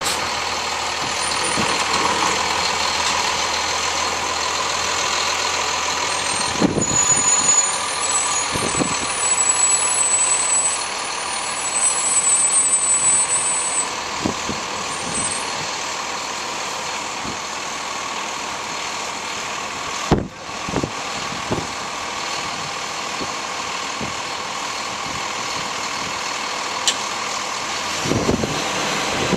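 Rear-loading garbage truck's diesel engine running steadily as the truck pulls up and stands, with a high squeal for several seconds and a few heavy bangs and knocks from the truck and the trash being handled.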